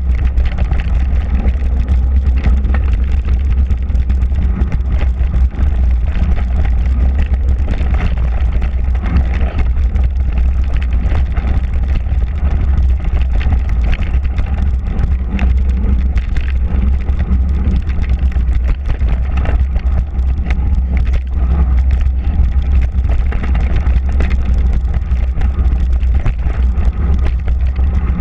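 Mountain bike rolling fast down a dirt trail: a steady low rumble of wind buffeting the microphone and knobby tyres on packed dirt, with frequent small clicks and rattles from the bike over the rough ground.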